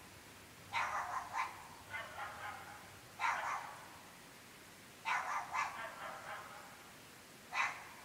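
Dogs barking in short bouts of one to three barks, every second or two, with brief pauses between.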